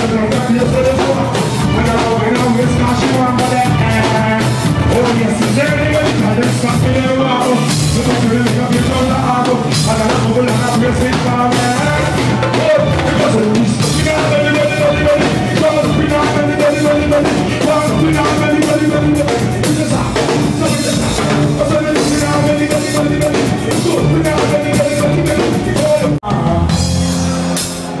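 A live band playing: drum kit, electric guitar and a singing voice, continuous and loud, with a brief break about 26 seconds in.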